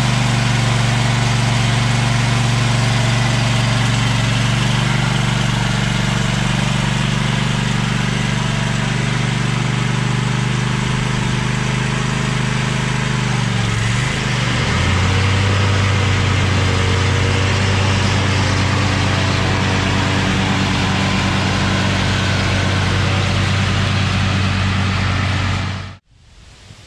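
Riding lawn tractor's engine running steadily. About halfway through, its pitch dips and settles lower and steady, then the sound cuts off suddenly near the end.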